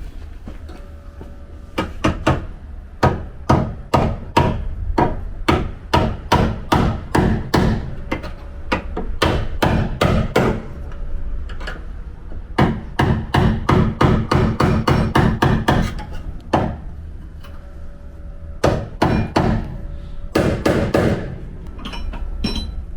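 Body-repair hammer striking a car's steel body panel in long runs of blows, sometimes several a second, with short pauses between runs, as a dent is worked out.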